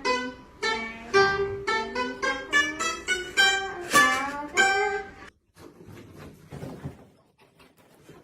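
Background music: a plucked guitar melody of single picked notes, about two a second, stopping abruptly about five seconds in, after which only faint sound remains.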